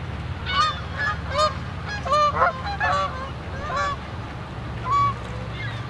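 Canada geese honking on the water: a string of short, overlapping honks, the loudest about halfway through and again near the end, over a steady low rumble.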